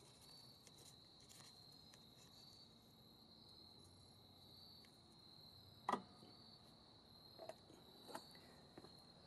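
Near silence with a faint steady high-pitched whine, broken by a few light clicks and taps, the loudest about six seconds in.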